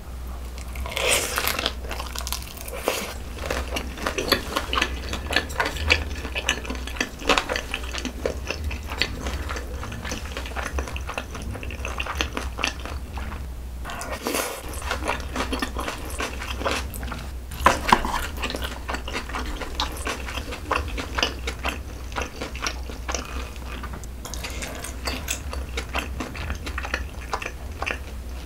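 Close-miked eating sounds: a person biting and chewing saucy noodles, chicken and dumplings, with many irregular wet mouth clicks and smacks and a few louder bites.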